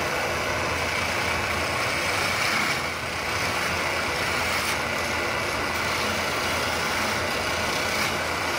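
Electric wood lathe running steadily, spinning a wooden baluster blank while a hand-held turning tool is held against it, giving a continuous hiss of cutting over the hum of the motor.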